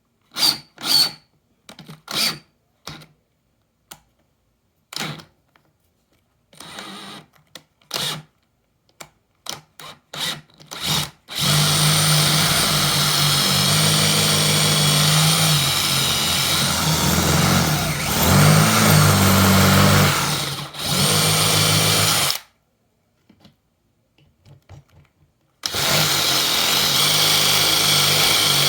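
Cordless drill triggered in a series of short bursts, then run steadily for about ten seconds. It stops, and near the end it starts up again and runs steadily.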